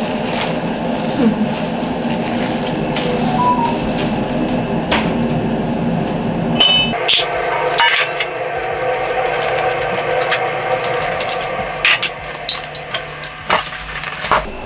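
Clinks and rustles of a cheap barbecue's metal parts and paper packaging being handled on the floor, with a few sharp clicks in the second half. Underneath runs a steady background of held tones that shifts about halfway through.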